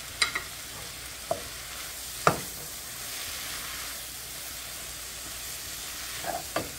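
Sliced mushrooms, onions and peppers sizzling in a skillet as a wooden spatula stirs them. The spatula knocks against the pan a few times, loudest a little over two seconds in.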